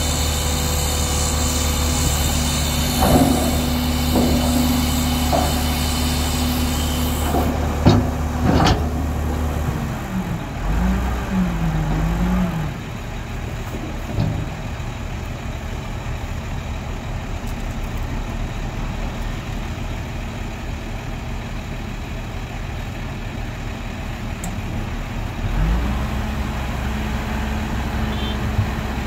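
Diesel engines of heavy earthmoving machinery, a bulldozer and dump trucks, running at a landfill. A steady engine drone is broken by a few sharp knocks about eight seconds in. The engine note then drops and wavers up and down before settling lower, and a stronger steady engine note comes back near the end.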